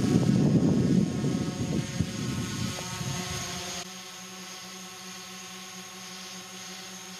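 Small rocket motors on a spinning fidget spinner burning with a loud, crackling rush that cuts off abruptly about four seconds in as they burn out. A steady multi-tone propeller hum from a hovering quadcopter drone runs throughout and is left on its own after the rockets stop.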